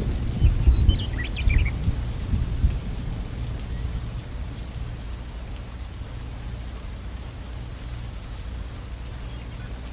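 Thunderstorm: thunder rumbles through the first few seconds over steady rain, then fades, leaving the rain alone.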